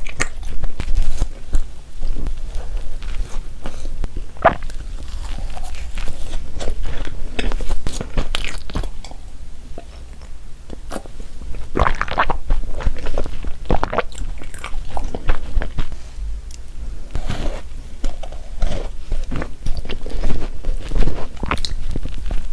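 Close-miked eating sounds: a person biting into and chewing donuts, with wet chewing and occasional crunchy bites at irregular intervals. The loudest bites come about four, twelve and twenty-one seconds in.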